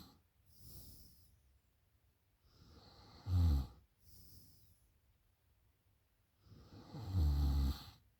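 A woman snoring in her sleep after drinking. Two loud, low, buzzing snores about four seconds apart, each swelling to a peak, the second one longer. Each snore is followed by a softer, breathy breath out.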